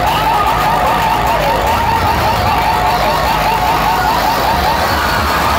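A DJ truck's loudspeaker stack blasting a rapidly repeating warbling siren-like effect over steady low bass.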